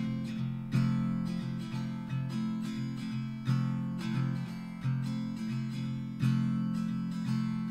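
Background music: acoustic guitar picking, with notes struck in a steady rhythm.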